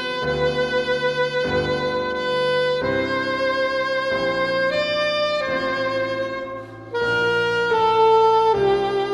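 Saxophone with piano accompaniment playing a slow classical melody in long held notes, with a brief softening shortly before the end.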